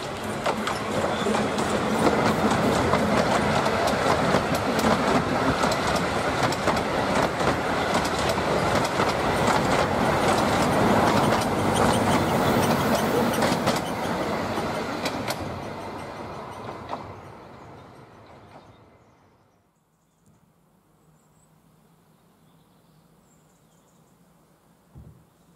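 Narrow-gauge steam train passing close by: a Hunslet 0-4-0 saddle-tank locomotive and its carriages, the wheels clattering over the rail joints with a steady run of clicks. The sound fades away from about 15 s in and is gone by about 19 s, leaving faint background hum with a single small thump near the end.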